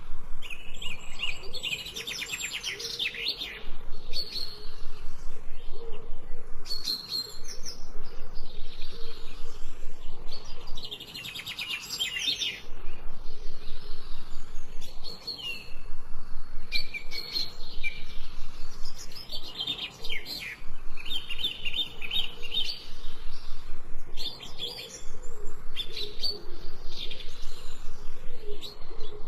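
Songbirds chirping and singing in repeated phrases of fast, high trills and quick notes, with short pauses between phrases.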